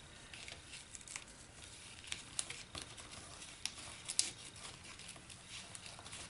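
Faint rustling and scattered light ticks of ribbon and cardstock being handled as a ribbon is tied in a knot around a paper stocking.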